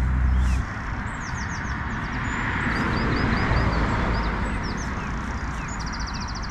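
Steady rush of road traffic with small birds chirping over it: short high chirps throughout and a fast trill near the end. A low rumble cuts off about half a second in.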